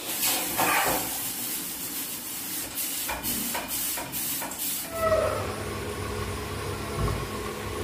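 Soup cooking in a pan on a gas stove: a steady hiss of steam and sizzling, with a few sharp clinks of utensils in the first half. About five seconds in, it gives way to a steadier, lower rush from the pan on the burner.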